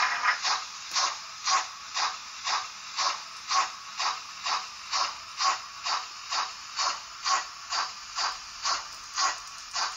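Märklin H0 model steam locomotive, a BR 56, running slowly with its digital sound decoder playing steady, evenly spaced steam chuffs through the model's small loudspeaker, about two chuffs a second.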